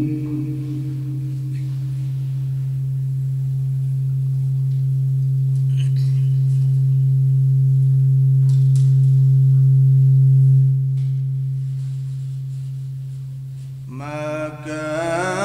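A PA system feeding back: a steady low hum-like tone that builds gradually louder for about ten seconds, drops suddenly, then fades away. Near the end a man's melodic Quran recitation comes in through the same PA.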